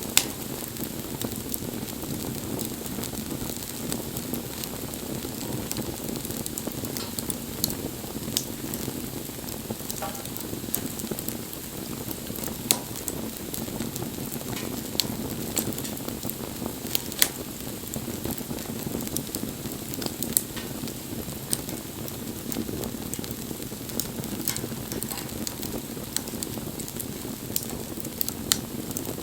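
Wood bonfire burning: a steady low rush of flames with scattered sharp crackles and pops from the burning wood.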